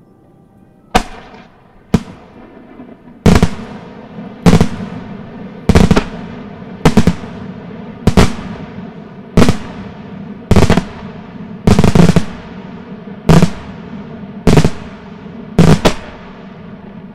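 Aerial firework shells going off one after another in a steady sequence, a sharp loud bang about every second and a quarter, each trailing off in an echo.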